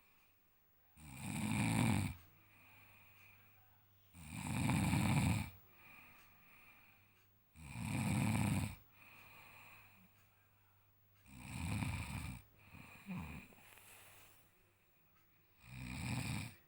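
A man snoring in his sleep: a loud snore roughly every three to four seconds, with quieter breathing between them.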